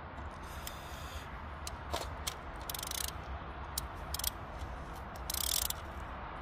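Mazda 626 engine running with a steady low hum, while a hand tool working on the spark plugs gives several short metallic clicks and rasps, the loudest near the end.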